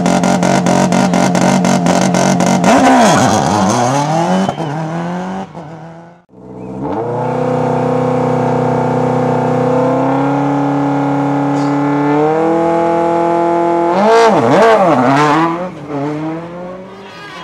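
Turbocharged four-cylinder World Rally Car engines at high revs. The first car passes and its engine note drops sharply in pitch, then the sound cuts off about six seconds in. A second car's revs climb in steps as it approaches, and it passes with the pitch dropping twice before fading.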